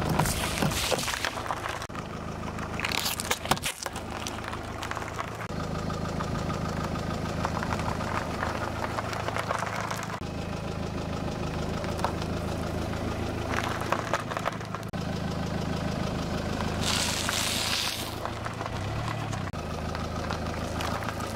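A car engine idles steadily as the car's tyre rolls slowly over juice cartons and soft cream-filled pastries, crushing them. Several short crackling, bursting crushes sound over the engine's low hum.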